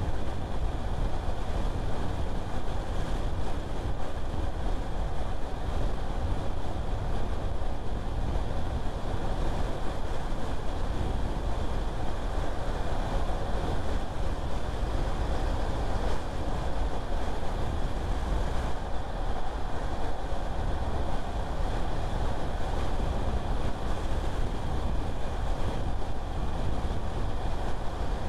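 Car being driven at a steady pace: continuous low rumble of road and engine with a hiss of tyres and wind, no sudden sounds.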